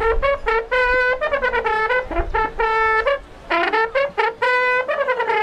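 Roman cornu, a large circular brass horn, blown as a military signal call: a run of short notes with brief breaks, several sliding up into their pitch.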